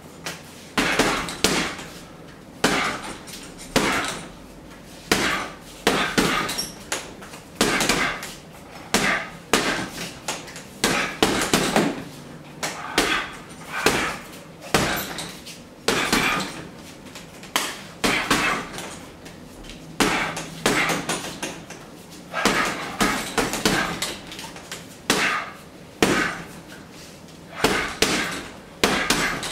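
Boxing gloves punching a hanging heavy bag: a steady run of thuds, often in quick combinations of two or three, coming every second or two.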